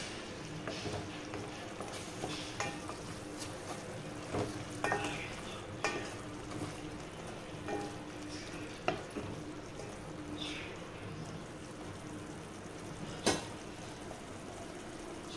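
Mushroom curry sizzling in a stainless steel pot while a wooden spatula stirs and scrapes through it, with several sharp knocks of the spatula against the pot, the loudest near the end.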